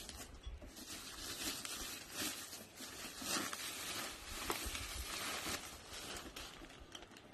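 Plastic packaging and bubble wrap crinkling and rustling in irregular bursts as a parcel is unwrapped by hand.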